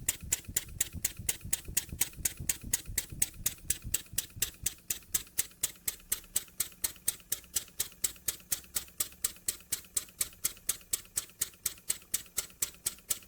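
Jowitt Major poppet-valve model steam engine running steadily on compressed air, its cam timing freshly set, giving an even clicking beat of about four or five clicks a second. A low hum sits under the first few seconds.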